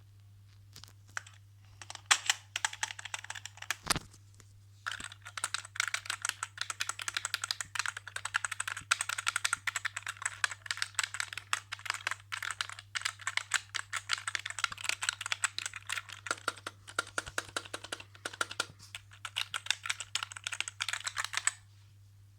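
Fast typing on a customized budget keyboard: a dense run of key clicks that pauses briefly about four seconds in, then continues until shortly before the end.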